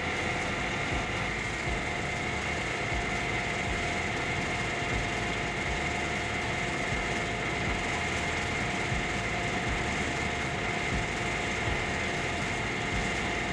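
Heavy machinery running steadily, an engine drone with a constant high whine and no pauses or impacts.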